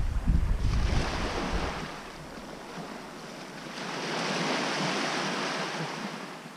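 Small waves washing onto a sandy beach, with wind rumbling on the microphone for the first couple of seconds before dying away. The surf swells louder around four to five seconds in.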